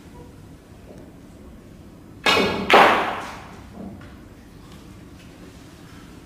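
Snooker balls clicking on a shot: a sharp click of the cue striking the cue ball, then a louder ball-on-ball click about half a second later that rings briefly, and a soft knock about a second after that.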